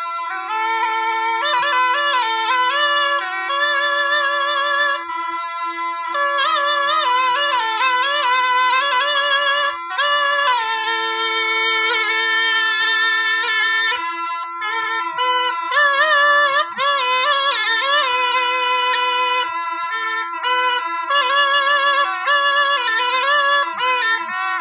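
Instrumental Rajasthani folk music: a reedy wind instrument plays a wavering, ornamented melody with vibrato over a steady drone note, with no singing.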